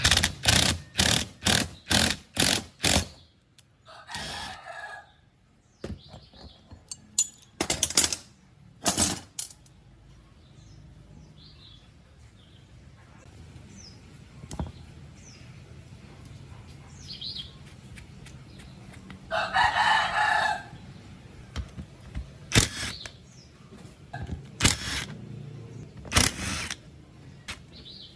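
Metal knocks and clanks from taking apart an old air compressor pump: a quick run of about seven sharp knocks in the first three seconds while a pulley is worked off with a gear puller, then scattered single knocks and two brief scraping sounds as the finned pump block is handled on a steel bench plate.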